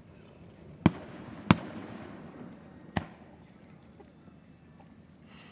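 Fireworks shells bursting: three sharp bangs, about a second in, half a second later, and near three seconds, each trailing off in a short rumbling echo. A brief high hiss follows near the end.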